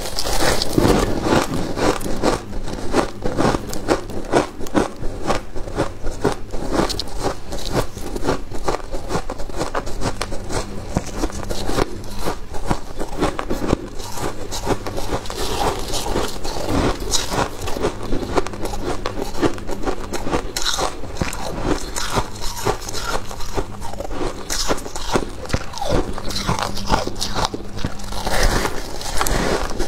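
Freezer frost ice being bitten and chewed, with rapid, closely packed crunches throughout.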